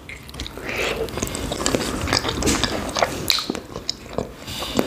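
Biting into and chewing a small khinkali dumpling in cream sauce, with many irregular small mouth clicks.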